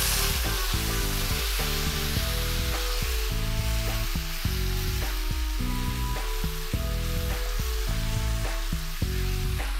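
Marinated chicken pieces and potatoes sizzling steadily in hot oil and ghee in a frying pan as they are stirred with a wooden spatula to sear. Background music with held notes plays over the sizzle.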